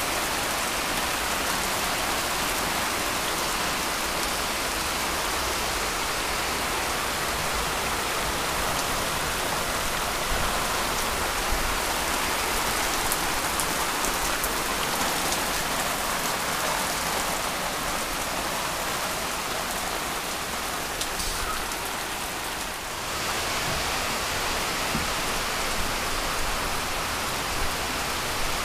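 Heavy rain pouring steadily: a dense, even hiss with a few louder drips standing out.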